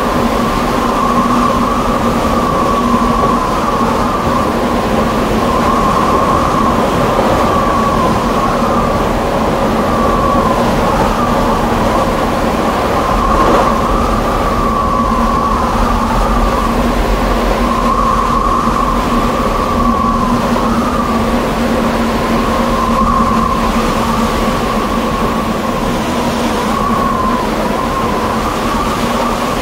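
Electric rack-railway train heard from on board while running. There is a steady rumble and a high whine that wavers slightly in pitch.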